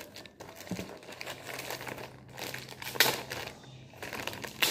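Clear plastic packaging bag crinkling and rustling as it is handled and opened, in irregular crackles with a sharper, louder crackle about three seconds in and again near the end.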